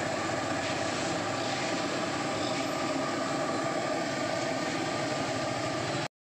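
Steady sizzling and bubbling of jalebi deep-frying in a wide pan of hot oil. It cuts off suddenly near the end.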